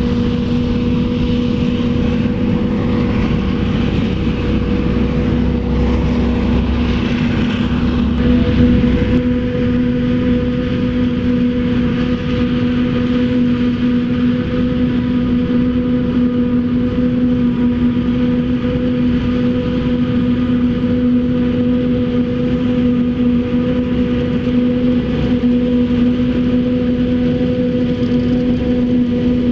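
Heavy farm machinery harvesting maize silage runs at a steady load with a constant-pitched hum, swelling slightly about eight seconds in.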